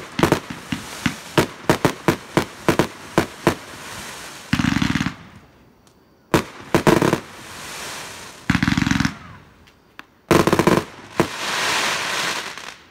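Consumer aerial fireworks going off: first a fast string of sharp bangs, then a few half-second bursts of very rapid popping with more bangs between them. Near the end comes a sustained crackle from glittering crackling stars.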